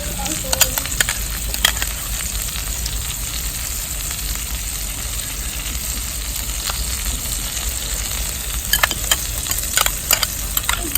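Butter-basted chicken sizzling on a hot cooking stone: a steady frying hiss with scattered sharp pops, several in quick succession near the end.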